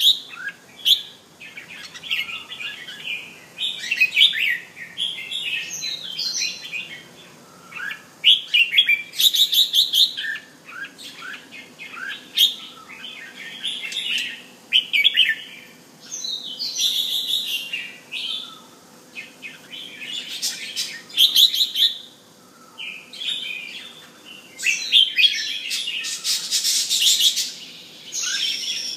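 Caged red-whiskered bulbul (jambul) singing, repeating short bright chirpy phrases with brief pauses between them, a denser run of notes near the end.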